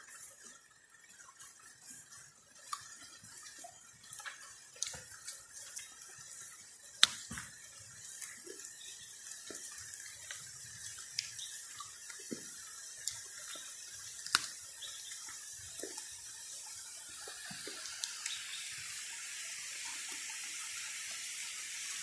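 Rushing water, a steady hiss that grows louder near the end as the waterfall comes closer, with scattered small snaps and taps of footsteps through wet brush.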